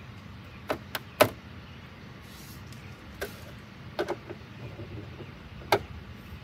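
About half a dozen sharp clicks and taps of a hand tool and license plate frame against the rear license plate of a car as the plate is fastened, the loudest about a second in.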